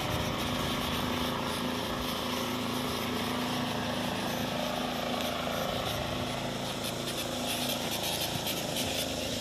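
A steady engine drone with a constant low hum.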